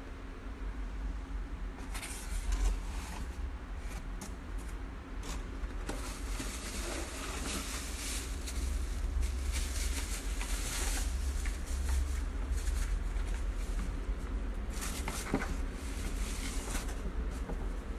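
Packaging being handled: cardboard box flaps, a foam packing sheet and a plastic bag rustling and crinkling in irregular bursts, over a steady low rumble.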